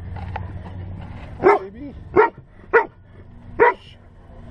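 A dog barking four short, loud barks, spaced well under a second apart.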